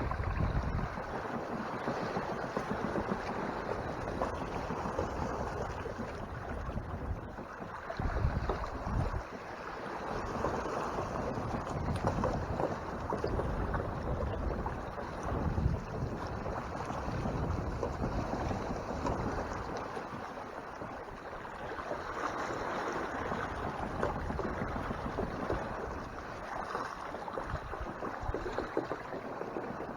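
Water rushing along the hull of a Hobie Tandem Island sailing kayak moving under sail through swells, with wind gusting on the microphone now and then.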